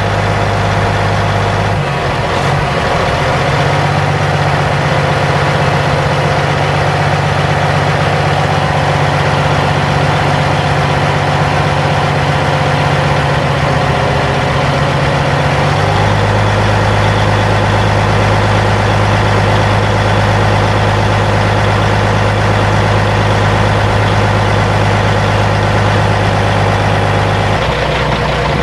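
Caterpillar 3406 inline-six turbo diesel of a 1998 Kenworth T600 semi truck running steadily at idle. About two seconds in it steps up to a higher steady engine speed, holds there until about halfway through, then drops back to idle.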